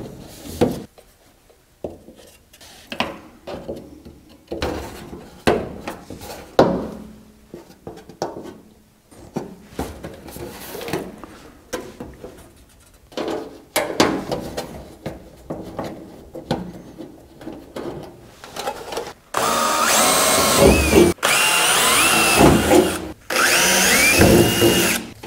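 Scattered handling knocks and rustles, then a cordless drill running in three bursts of about two seconds each, its pitch shifting as it drills screw holes through the sheet-metal front valance.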